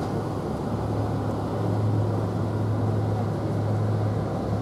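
Large cruise ship's engines giving a steady low drone and hum, the hum growing stronger about a second and a half in.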